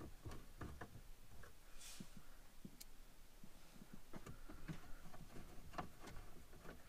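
Faint, scattered clicks and ticks of a hand screwdriver driving screws into the plastic compass pack shroud on the dashboard, with light handling of the plastic trim.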